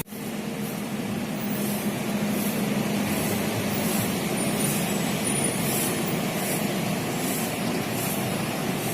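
Bus engine idling steadily, with faint hissing that comes and goes.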